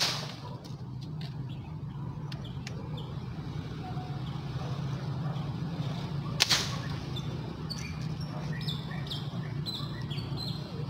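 Air rifle fired once about six and a half seconds in: a sharp crack with a short ringing tail, the loudest sound here. A similar sharp knock comes right at the start, and short falling chirps, like small birds, follow near the end over a steady low hum.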